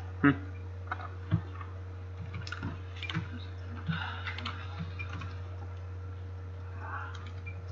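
Sparse, irregular clicks and taps from a computer mouse and keys being worked, over a steady low hum.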